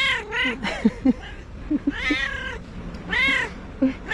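Calico cat meowing over and over: about four meows that rise and fall in pitch, two close together at the start and more about two and three seconds in, with short low chirps in between.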